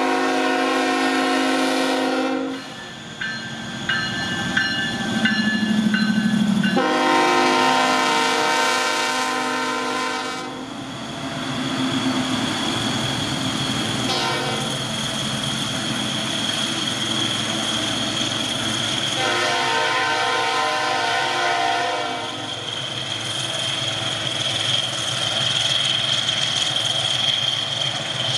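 Diesel locomotive horn blown in three long blasts as a pair of freight diesels (a Wabtec ET23DM leading CSX SD23T4 1726) run past, with their engines and wheels on rail heard between blasts. A steady high whine joins in about halfway through.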